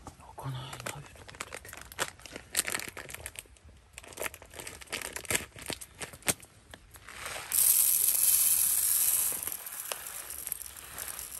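Plastic packaging crinkling and rustling, with small clicks and knocks from handling, then a steady hiss that lasts about two seconds, starting past the middle.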